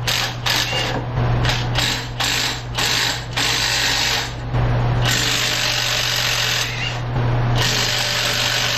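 A ratchet running nuts off at the exhaust. It goes in a string of quick short bursts, then two longer runs, about five seconds in and again near the end, over a steady low hum.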